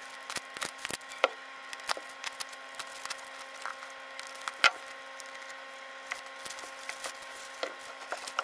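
Clear plastic wrap crackling and snapping as a utility knife slits it and hands peel it off a plant pot: scattered sharp clicks, the loudest about four and a half seconds in, over a faint steady hum.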